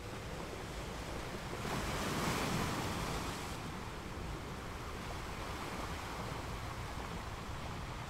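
Sea waves washing, a steady rushing noise with one wave swelling louder about two seconds in and then easing back.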